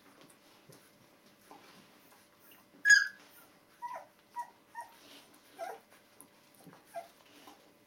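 Two-week-old Border Collie puppies whimpering and squeaking: a string of short, high squeaks, the loudest about three seconds in and five more following over the next four seconds.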